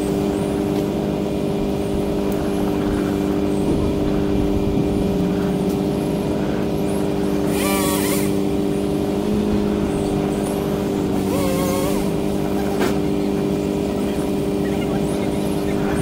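Bucket truck's engine running at a steady speed, giving an even hum with a clear pitch. Two brief, harsher noises stand out over it, one about eight seconds in and another about eleven seconds in.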